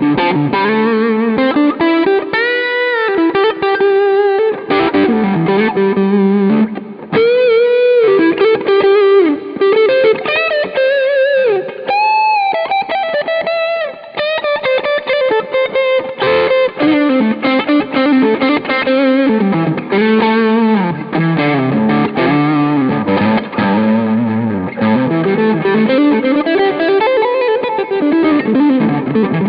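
Sqoe SEPRS 900 electric guitar played through overdrive on its neck pickup: single-note lead lines with quick runs and several string bends.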